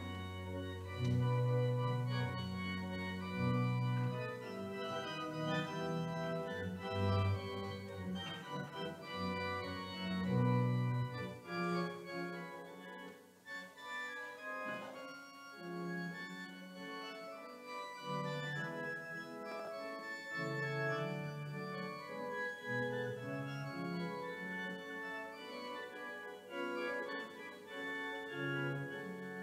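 Church organ playing slow, sustained chords as the closing voluntary after the blessing, with deep bass notes under the first ten seconds or so.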